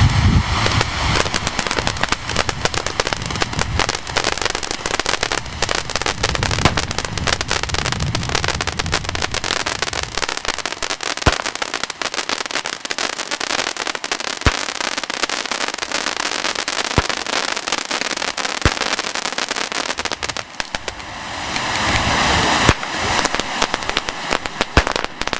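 Fireworks crackling: a dense, rapid stream of small bangs that goes on and on, with a few louder single reports in the middle. Near the end a hiss rises and ends in a louder bang.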